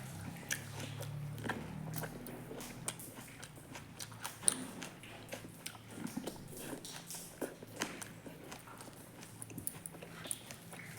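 Close-miked eating: a person chewing and biting food, heard as a stream of irregular small clicks and smacks, with one sharper click about four and a half seconds in.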